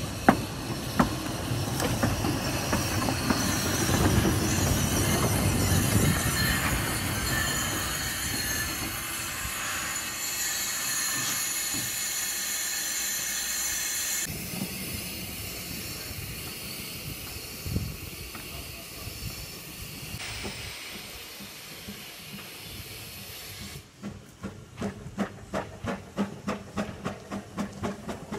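Narrow-gauge steam locomotives: steam hissing, with a low running rumble through the first half. Near the end a locomotive's exhaust chuffs evenly, about two to three beats a second, as it works towards the camera.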